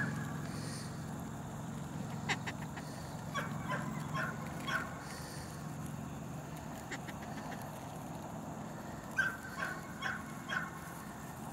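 A litter of puppies at play: short, high squeaks and yips in clusters, a few seconds in and again near the end, over a low steady hum.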